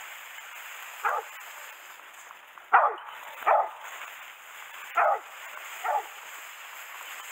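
A boar-hunting hound barking out of sight: five short, loud barks at uneven intervals, the second the loudest.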